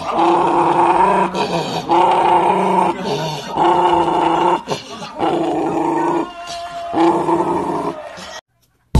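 Shiba Inu growling at its own reflection in a mirror, in about five long bouts with short breaks between them. The sound cuts off suddenly near the end.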